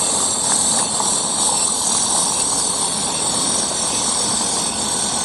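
Chorus of cicadas: a steady, dense, high-pitched buzz.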